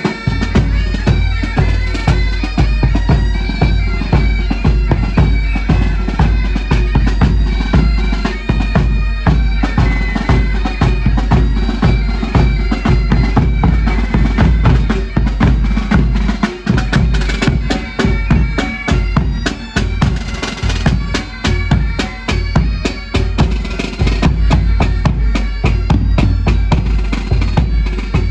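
Military pipe band playing: bagpipes carry a melody over their steady drones, with the band's drums beating time.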